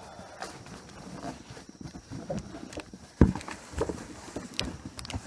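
Drill press parts and packaging being handled: rustling with scattered knocks and clicks, and one loud thump about three seconds in as something heavy is set down or bumped.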